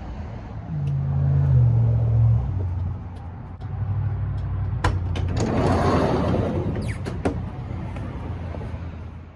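A motor vehicle running, a low hum that steps in pitch, with a louder rushing pass in the middle and a few sharp clicks.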